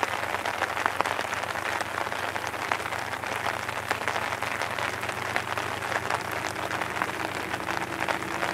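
Steady rain, a dense crackle of drops hitting close by, with a faint steady low hum beneath.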